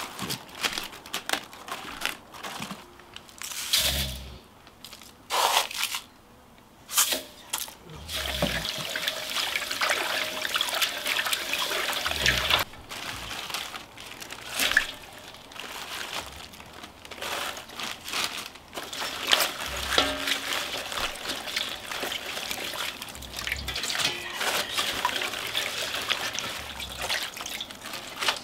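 A few knocks and rustles as napa cabbage leaves are handled, then from about eight seconds in a steady run of water and splashing in a stainless steel bowl as salt brine is mixed and the cabbage leaves are put in to soak.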